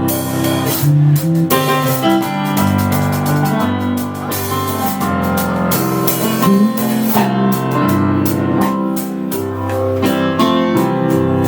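Instrumental music with plucked guitar and keyboard over a steady beat, without vocals.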